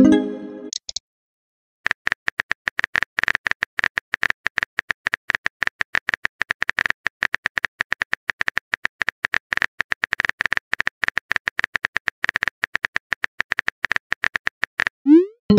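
Rapid, irregular keyboard clicks of a texting app's on-screen keyboard as a long message is typed, each click with a sharp high tick. A brief pitched message sound at the start, and a short rising swoosh with another message sound at the very end as the text is sent.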